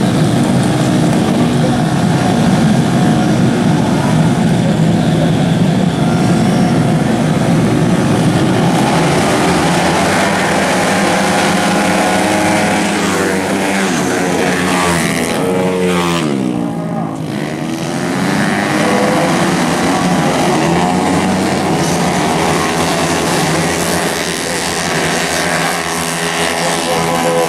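A pack of tuned automatic racing scooters of up to 150 cc revving hard at high engine speed, first together on the starting grid and then racing. Their engine notes rise and fall in pitch as they pass, with a clear falling sweep around the middle.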